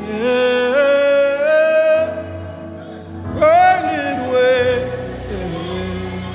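Gospel worship singing: a single voice holds long notes that step upward, then reaches a high note with vibrato about three and a half seconds in and slides back down. Instrumental accompaniment holds sustained low notes underneath.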